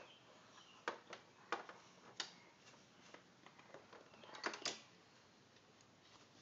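Faint, irregular clicks and clacks of plastic magnetic alphabet letters being handled and knocked together, about a dozen over the first few seconds, with a quick cluster near the end.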